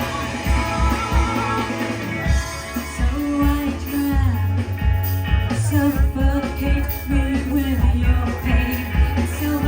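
Rock band playing live, with a steady drum beat under bass and sustained instrument lines.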